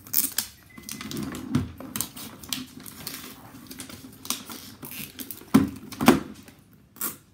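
Hands tearing open a toy's packaging: an irregular run of crackling, ripping and clicking, with a few louder knocks, the loudest about six seconds in.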